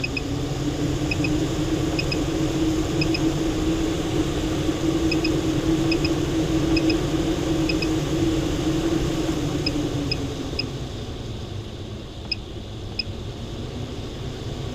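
Maxx Fan roof vent fan running with a steady whir and hum, the sound dropping noticeably about ten seconds in. Faint high double chirps or ticks repeat about once a second over it.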